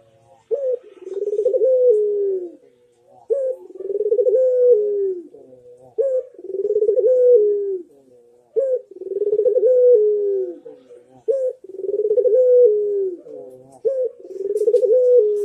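Ringneck dove (puter) cooing, about six calls in steady succession. Each is a short clipped note followed by a long rolling coo that drops in pitch at the end.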